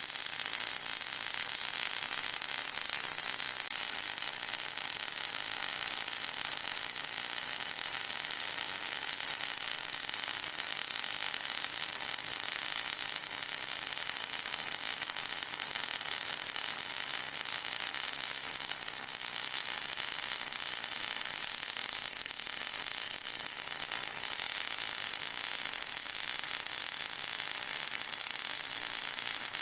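Steady white-noise masking sound, a hiss strongest in the high range with a fine crackle running through it, made for masking tinnitus.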